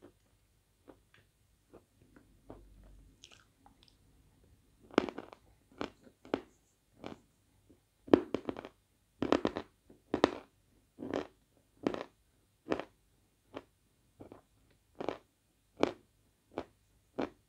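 Chunks of Svetogorye edible chalk crunching as they are chewed. There are a few faint crunches at first, then from about five seconds in a steady, louder crunch a little more than once a second.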